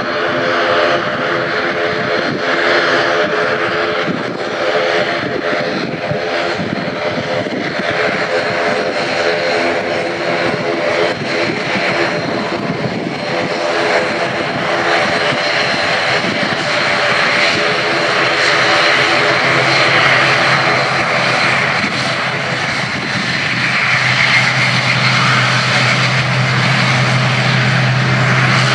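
ATR 72-600 with two Pratt & Whitney PW127M turboprops running on the runway: a loud, steady propeller drone made of many layered tones. A deep low propeller hum comes in about two-thirds of the way through and grows louder.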